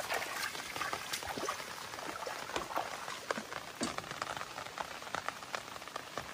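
Steady rain falling on river water: an even hiss with many small, irregular drop ticks.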